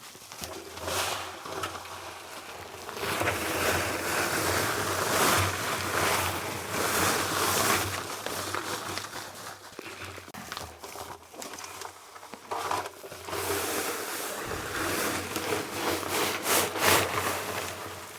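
Concrete mixer running, its drum churning a batch of concrete with a steady motor hum and a sloshing, swelling wash. There are a few sharp scrapes or knocks near the end.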